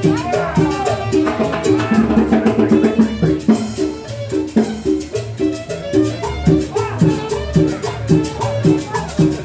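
Salsa music playing with a steady beat, rattling shaker and drums.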